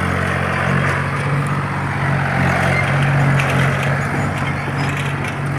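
Tractor engine running steadily while driving a front-mounted reaper binder through a standing grain crop, its hum mixed with the noisy clatter of the working binder and a few sharp ticks about halfway through.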